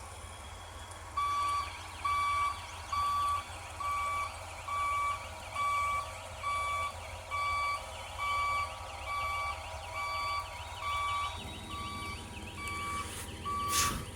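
A heavy machine's warning beeper starts about a second in and sounds steadily at roughly one beep a second, over a low engine running. A short loud crackle comes near the end.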